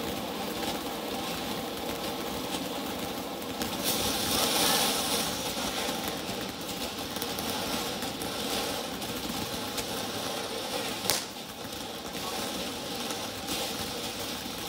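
Phantom Peacock Tail Fan ground fountain firework burning, spraying sparks with a steady rushing hiss that swells louder about four seconds in. One sharp crack comes about eleven seconds in.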